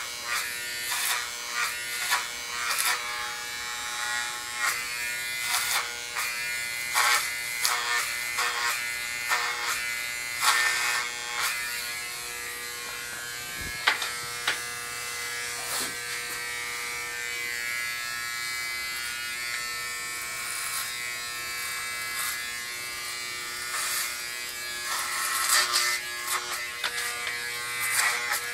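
Corded electric hair clippers running with a steady buzzing hum, crackling in repeated short strokes as the blades cut through hair, with a calmer stretch in the middle. One sharp knock about halfway through.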